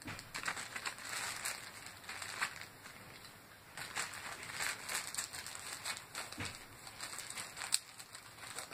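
A bag and plastic toy pieces rustling and scraping in irregular bursts as the pieces are packed away, with a sharp click near the end.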